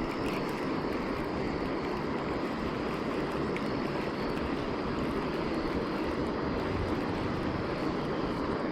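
Steady, even rushing noise with no pitch to it, holding at one level throughout.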